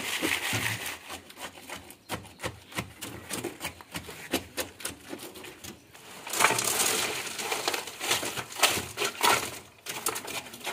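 Irregular clicks, knocks and scrapes of a steel rod being jabbed into wet concrete among steel reinforcement bars, with a short burst of rustling noise about six seconds in.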